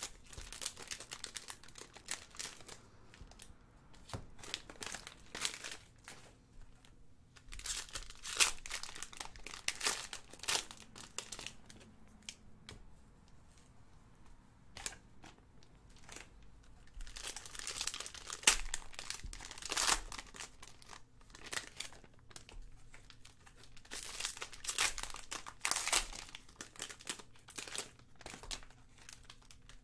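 Foil trading-card pack wrappers crinkling and tearing as sealed packs are ripped open and handled, in irregular clusters of crackles with quieter gaps between them.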